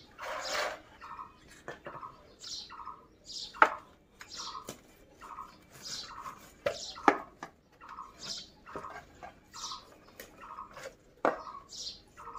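A large knife sawing back and forth through a big fish behind its head, a rasping stroke about every half second, with a few sharp knocks against the metal basin.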